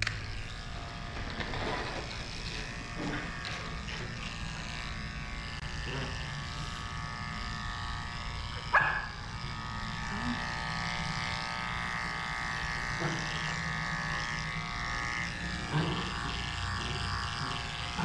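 Electric dog-grooming clippers running with a steady hum as they shave a schnauzer puppy's matted coat. A brief sharp knock comes about halfway through.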